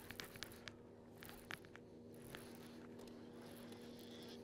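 Near quiet: a faint steady hum with a few light clicks and taps in the first second and a half.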